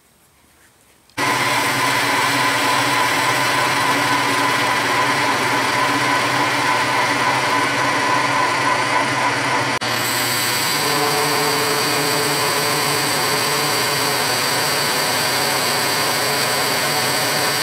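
South Bend 9-inch toolroom lathe running under power while the tool takes a cut on a large spinning metal workpiece, a steady machine whine with several held tones. It starts suddenly about a second in, and the tones shift about ten seconds in.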